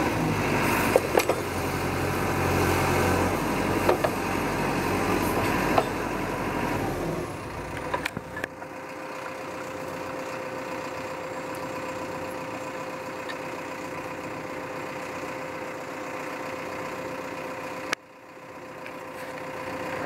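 Caterpillar 420E backhoe loader's diesel engine idling, with a few sharp knocks, then stopping about eight seconds in. A faint steady hum is left.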